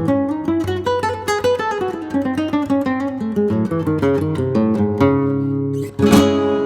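Acoustic guitar music: fast plucked notes running downward, then held chords, with one hard strum about six seconds in that rings on.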